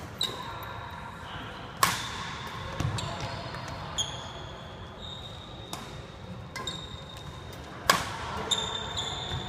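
Badminton rackets hitting shuttlecocks in a smash-and-drop drill: sharp cracks, the two loudest about two seconds in and near the end, with lighter hits between. Sneakers squeak on the hardwood court floor in between.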